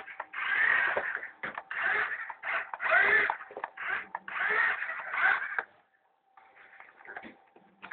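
Domestic cat meowing about five times in a row, each call under a second long and bending in pitch, then falling quiet for the last couple of seconds.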